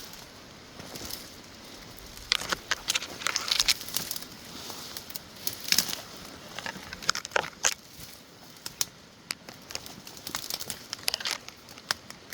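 Dry brush crackling and snapping as someone pushes through thick scrub on foot: twigs and leaf litter crunching and branches brushing past, in irregular clusters of sharp crackles.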